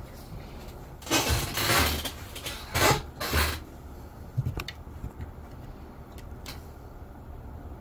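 Rustling and shuffling from a person shifting in an office chair, three loud bursts in the first few seconds, followed by a few faint clicks.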